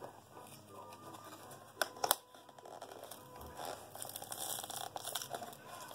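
Cardboard blind box being pried open at its bottom flap and the foil bag inside crinkling as it is handled, with two sharp clicks about two seconds in.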